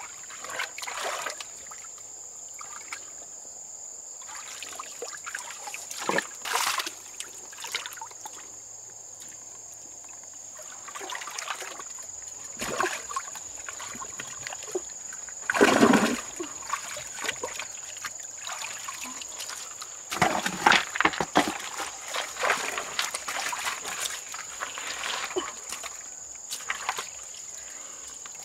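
Water splashing and trickling in irregular bursts, with the loudest splash about halfway through and a run of splashes about two-thirds in. A steady high-pitched whine sits underneath throughout.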